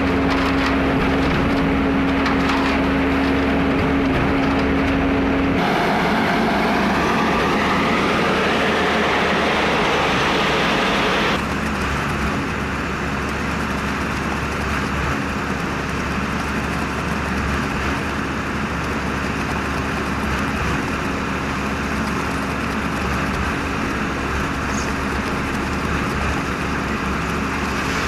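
Diesel-driven concrete mixer pump running steadily with a constant engine hum; the sound shifts abruptly about six seconds in and again about eleven seconds in.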